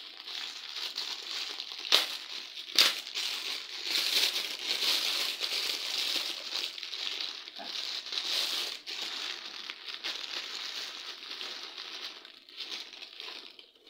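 Thin clear plastic bag crinkling and rustling as it is pulled open and handled, with two sharp snaps a little under a second apart about two seconds in. The rustling thins out near the end.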